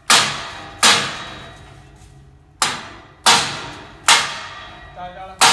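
Hammer blows on a steel grill, six uneven strikes, each ringing out after the hit, knocking the tight grill into its frame.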